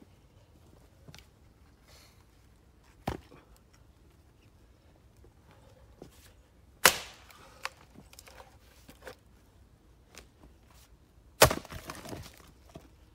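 Axe blows splitting a black locust firewood round on a chopping block: two heavy strikes about 7 and 11.5 seconds in, the second followed by a short run of smaller cracks as the wood gives, with a lighter knock about 3 seconds in.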